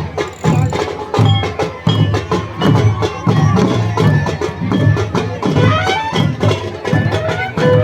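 Traditional folk music: drums beat a steady rhythm about twice a second, with a wavering melody line over them that grows stronger near the end.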